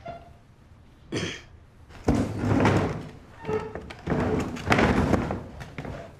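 Dull thumps and rustling, a few times over, as bodies shift about on makeshift bedding.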